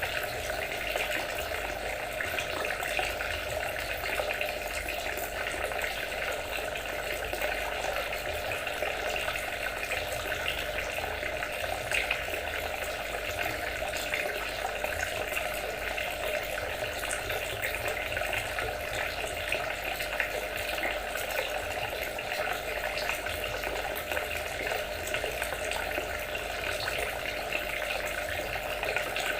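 Water trickling and splashing steadily without a break.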